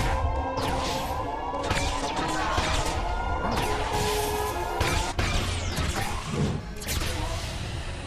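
Cartoon fight-scene soundtrack: action music playing under a series of crashing hit and whoosh sound effects, about half a dozen sharp impacts spread through.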